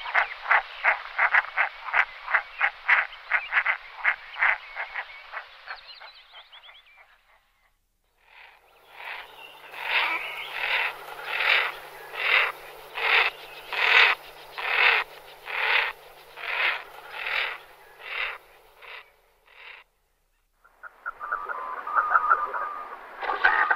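Common merganser (goosander) calling: a run of short, rhythmic calls at about three or four a second, then after a brief pause a slower series at about two a second. A denser, chattering run starts near the end.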